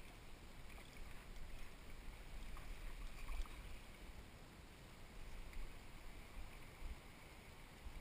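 Faint splashing and sloshing of stream water as a hooked Australian bass is played on a bent rod near the bank, with a louder splash about three seconds in. A low rumble comes and goes underneath.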